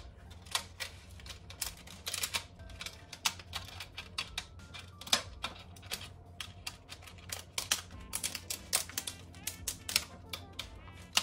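Clear plastic pie-crust lid crackling and clicking as it is pressed down around the rim of a foil pie tin: a steady run of irregular sharp clicks.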